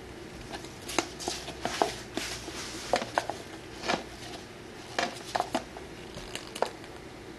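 A plastic paint bottle and a small tool handled against a canvas: irregular light clicks and taps, with short scraping or sputtering bursts in two clusters.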